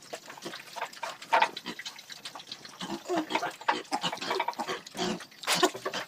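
Several pigs feeding at a trough, giving short irregular grunts amid a busy patter of snuffling and chomping.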